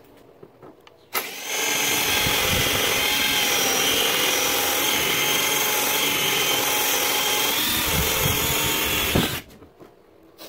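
Cordless drill running steadily as it bores out an old stud in a plastic kayak hull to make room for a well nut. It starts about a second in and cuts off abruptly near the end.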